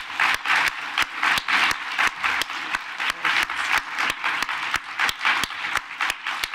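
Audience applauding, with sharp claps standing out at an even beat of about three a second.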